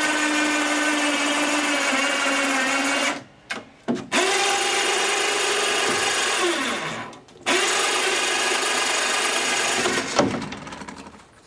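Electric hoist motor whining steadily as it moves an outboard onto the test tank. It is stopped and started: it cuts out about three seconds in with two short jogs, then winds down in pitch and stops about halfway through, runs again, and dies away near the end.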